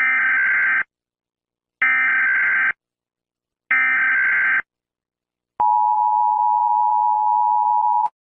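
Emergency Alert System header: three short bursts of digital data tones, each just under a second and about a second apart, then the steady two-tone EAS attention signal for about two and a half seconds, cutting off sharply.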